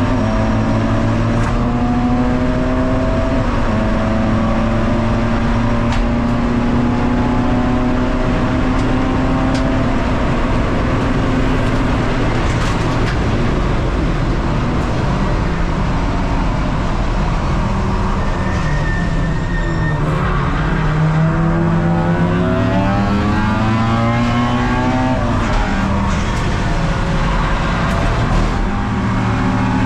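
Ford Focus Mk2 race car's engine running hard on track, its pitch climbing and falling with revs and gear changes. About two-thirds through, the revs drop steeply and then climb again.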